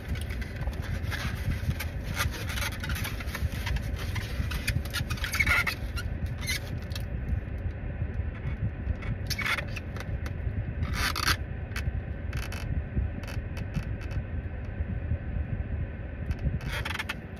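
Black plastic takeout clamshells and their paper liners rubbing and scraping as they are handled and held up, with scattered short crinkles. A steady low rumble runs underneath.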